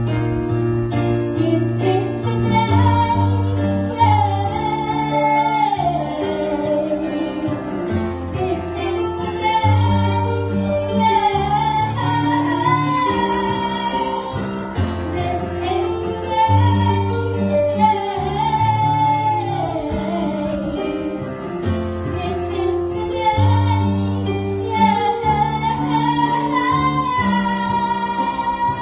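Music: a slow, high melody over plucked-string accompaniment and a bass line that steps from note to note.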